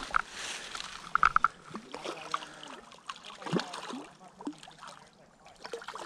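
Spinning reel being cranked as a hooked trout splashes at the surface in the shallows, with a few short high clicks about a second in.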